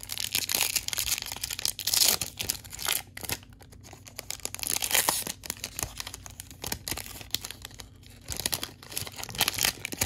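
Metallic foil wrapper of a baseball card pack being torn open and crinkled by hand: irregular bursts of crackling rustle, busiest in the first few seconds.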